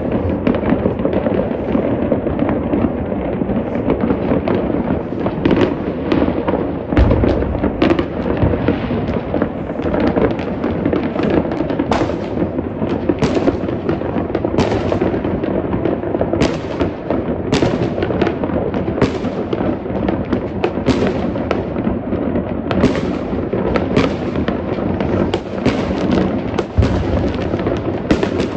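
New Year's Eve fireworks going off in great numbers: a dense, unbroken crackle and rumble, with sharp bangs every second or so from about a third of the way in, and a heavy deep boom about seven seconds in.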